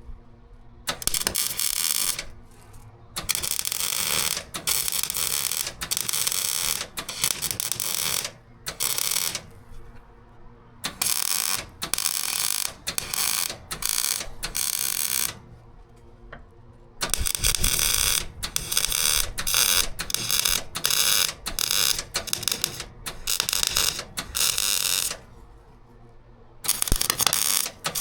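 Welding an anode onto a narrowboat's steel hull in short stop-start runs, each a crackling burst of one to three seconds with brief pauses between.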